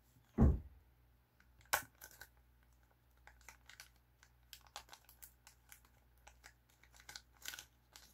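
Small plastic parts bags being handled and crinkled by hand on a desk, a run of light rustling ticks. A dull thump about half a second in is the loudest sound, followed by a sharp click.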